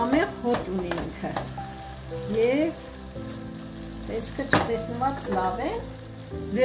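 Stir-fry sizzling in a frying pan while it is stirred, with a utensil scraping and knocking against the pan; the sharpest knock comes about four and a half seconds in.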